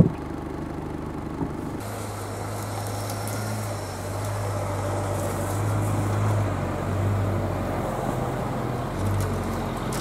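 GAZ Sobol 4x4 van engine running: a steady low idle at first, then, changing abruptly about two seconds in, a louder engine note that swells and dips as the van drives on.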